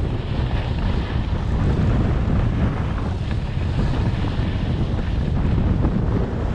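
Wind buffeting the microphone of a camera carried downhill on skis, with the steady hiss of skis sliding over snow.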